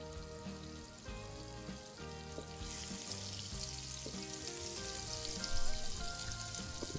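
Butter melting and sizzling in a hot nonstick frying pan as a wooden spatula pushes it around. The sizzle rises to a steady hiss about three seconds in, over soft background music.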